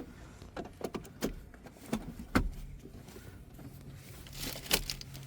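A car seatbelt being pulled across and buckled: scattered clicks and rustles, with a louder clatter of the latch near the end.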